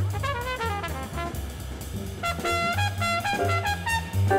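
Fast 1960s post-bop jazz from a quintet studio recording: a trumpet plays quick running lines over bass and drums.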